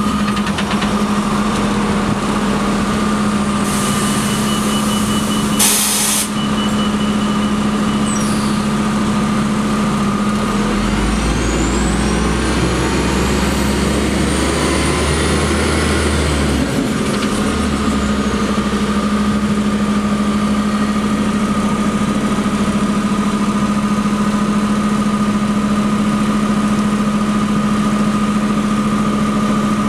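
City transit bus idling at the curb: a steady engine drone with a thin whine over it. About four seconds in comes a burst of compressed-air hiss from the bus's air system. Between about 11 and 17 seconds a deeper rumble swells and then cuts out.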